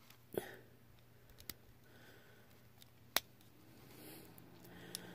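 Aqua Cyndeous Bakugan plastic toy being folded by hand: a few faint, sharp plastic clicks, the sharpest about three seconds in, as its parts are pushed toward ball form without snapping in.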